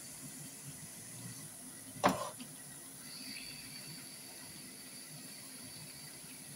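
Chebakia pastries deep-frying in a pan of hot oil: a steady bubbling sizzle. A single sharp knock comes about two seconds in.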